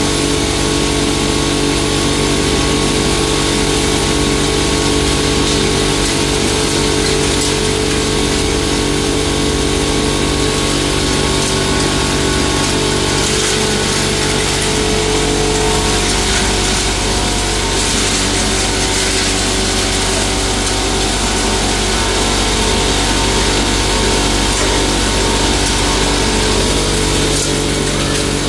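Belt-driven hammer mill pulverizer running steadily while grinding dried turmeric, a constant loud machine hum with a hiss of material being ground over it. Its low hum thins a little about halfway through and fills back in near the end.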